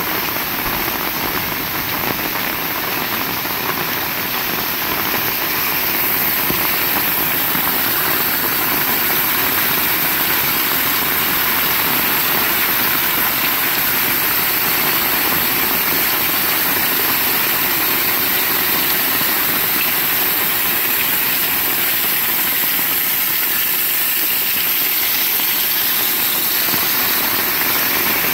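Heavy rain falling steadily, a dense even hiss that gets a little louder about six seconds in.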